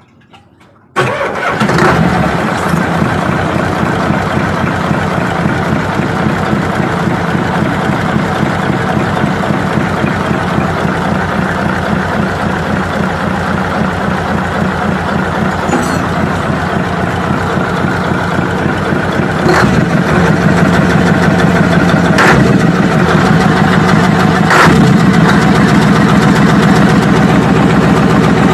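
Multi-cylinder diesel engine with an inline injection pump starting abruptly about a second in and then running steadily at idle with a fast, even rattling firing beat, a little louder in the second half with a few sharp clicks. The engine has a knock that the mechanic traces to worn, dirty injection-pump plungers.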